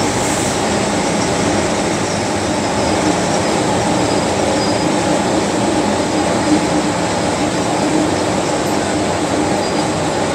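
MTR Tsuen Wan Line metro train running at steady speed, heard inside the carriage: a continuous rumble of wheels on rail with a faint steady hum.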